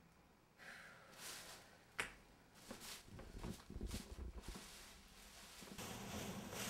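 Quiet room sounds: a single sharp click about two seconds in, then soft scattered knocks and rustling as someone moves about. A fuller steady sound comes in near the end.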